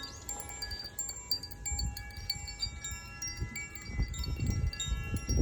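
Zaphir 'Sunray' chime: its clapper strikes the tuned metal rods in an irregular run of notes that ring on and overlap.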